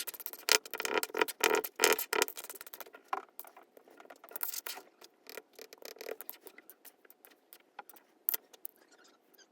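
Small objects being handled by hand: a dense run of crinkling, clicking and scraping in the first two seconds, then sparser, softer clicks and rustles.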